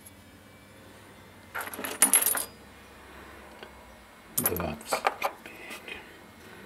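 Small metal enamel pin badges clinking and rattling against each other as they are handled, in two short bursts: one about a second and a half in, the other just past four seconds.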